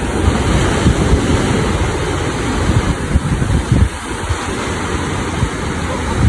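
Sea surf washing and breaking on the shore, with wind buffeting the microphone in gusts.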